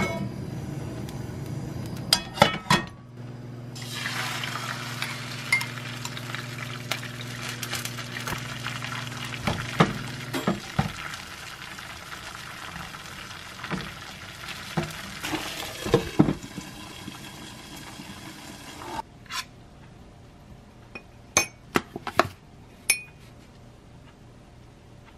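Beaten egg sizzling in a hot nonstick frying pan on a gas hob. The sizzling starts about four seconds in and stops suddenly after about fifteen seconds, with occasional knocks against the pan. Before it come a few clicks over a low steady hum. Near the end, a metal spoon clinks a few times against a glass mug.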